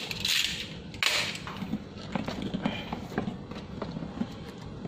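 Cardboard box being handled and turned by hand: scraping and rustling of cardboard, with a sharper scrape about a second in, then scattered light taps and knocks.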